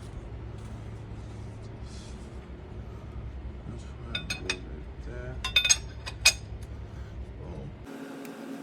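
Several sharp metallic clinks of hand tools and bolts being handled during engine reassembly, clustered in the middle of the stretch over a steady low hum.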